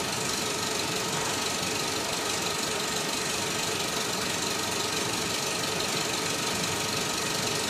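Film projector running with a steady mechanical clatter and hiss, an old-film sound effect.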